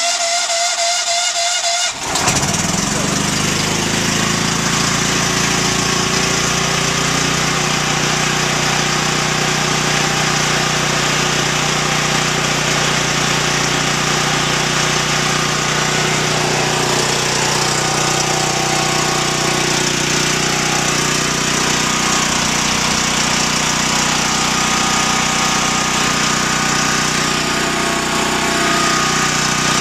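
Generac GP7500E portable generator's engine, converted to run on natural gas, cranks for about two seconds, catches and then runs steadily at a constant speed.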